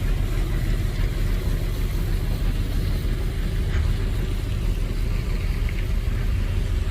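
Heavy diesel engine of a motor grader running steadily, a continuous low rumble.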